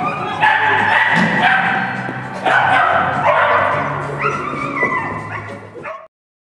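Music with held notes, with a dog barking and yipping over it; the sound cuts off about six seconds in.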